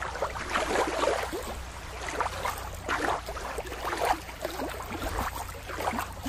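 Shallow water splashing and gurgling in quick, irregular little spurts, over a steady low rumble.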